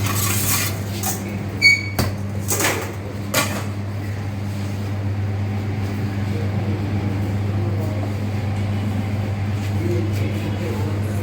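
Steady low electrical hum of commercial kitchen equipment, with a few sharp knocks of kitchen clatter and a brief high beep in the first four seconds.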